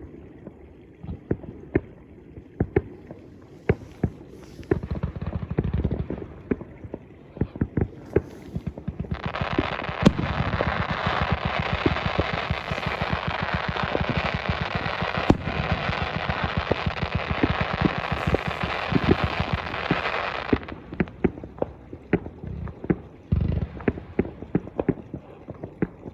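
New Year fireworks going off: scattered sharp bangs and pops, with a dense rapid crackling barrage lasting about eleven seconds from roughly a third of the way in.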